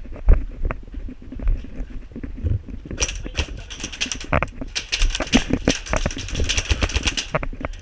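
Irregular thuds with rapid clicking and rattling, denser from about three seconds in until near the end: an airsoft player's footsteps and gear moving.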